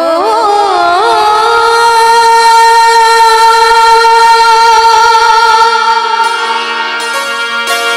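A woman singing a bhajan to harmonium accompaniment. An ornamented, wavering phrase settles into one long held note, which eases off near the end.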